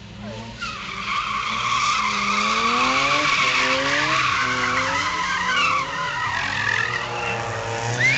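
BMW M3 drifting: its tyres screech without a break from about half a second in, while the engine revs rise and fall in waves underneath.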